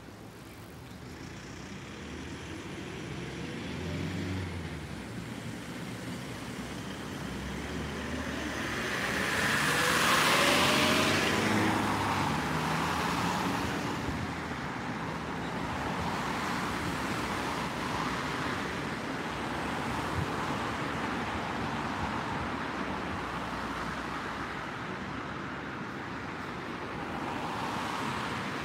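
Road traffic: a steady hum of passing cars, with one vehicle growing louder and passing about ten seconds in, its engine note rising as it goes by.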